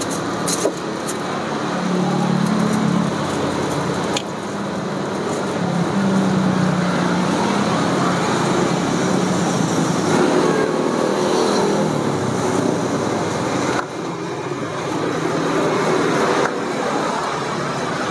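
Steady street traffic noise: a continuous hiss of road noise with motor vehicle engines humming up and down as they pass. There are a few sharp clicks of a ladle on a pot or a plastic tub near the start and about four seconds in.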